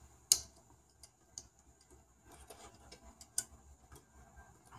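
Small sharp clicks and ticks of insulated crimp spade connectors and wires being handled and pushed together: one sharp click just after the start, another about three and a half seconds in, and faint ticks between.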